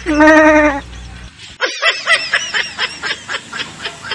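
A young goat bleats once, a loud wavering call lasting under a second. After a brief gap comes a quick run of knocks, about four a second, growing fainter.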